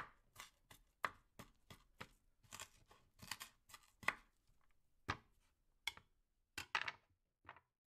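Knife chopping food on a cutting board: faint, irregular knocks, two or three a second at first, then sparser with pauses in the second half.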